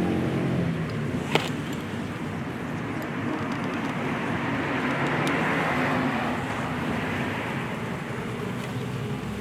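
A car passing on a nearby road, its tyre noise swelling to a peak midway and then fading, with a single sharp click a little over a second in.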